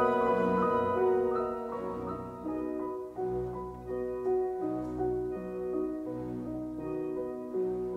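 Background music: a slow classical-style piece with piano, single notes following one another at an unhurried pace.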